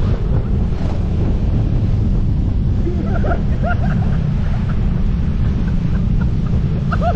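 Wind buffeting the microphone of a moving motorcycle: a loud, steady low rush. Faint snatches of voice come through about three seconds in and again near the end.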